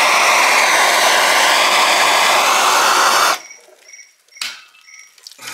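Bernzomatic TS8000 propane torch burning with a loud, steady rushing hiss of flame, shut off sharply about three seconds in.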